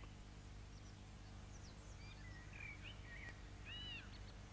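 Faint, scattered bird chirps and short calls, with a pair of arching calls near the end, over a steady low hum.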